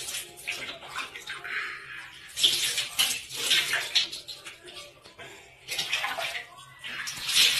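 Water splashing and sloshing in a large plastic tub, in short irregular bursts.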